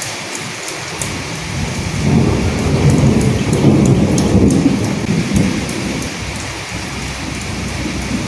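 Steady rain hissing, with scattered drop ticks. A low roll of thunder builds about a second in, is loudest from about two to five seconds, and fades away by about six seconds.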